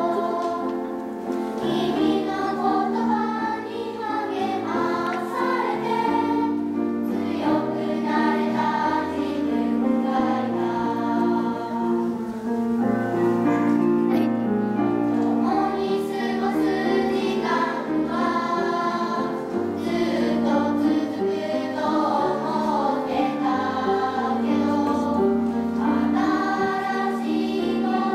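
Elementary-school children's choir singing a Japanese choral song, the voices moving through long held notes over a low accompaniment.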